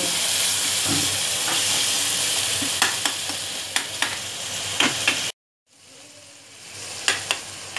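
Onion-tomato masala sizzling as it fries in oil in a metal kadhai, stirred with a slotted metal spatula that scrapes and clicks against the pan. The sound cuts out briefly about two thirds of the way through, and the sizzle is quieter afterwards.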